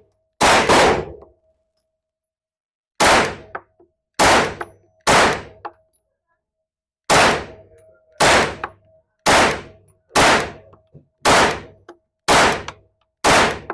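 Kel-Tec Sub-2000 carbine fired about twelve times in semi-automatic: a quick double shot, a pause, then shots spaced roughly a second apart, each a sharp crack with a short echoing tail. A faint ringing tone lingers after several of the shots.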